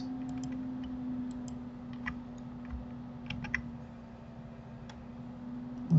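Irregular light clicks of a computer keyboard and mouse, a few at a time with gaps, over a steady low hum.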